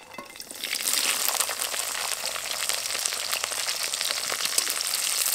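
Chopped carrots, green beans and capsicum dropped into hot oil in a kadai, sizzling and crackling. The sizzle swells within the first second as the vegetables hit the oil, then holds steady.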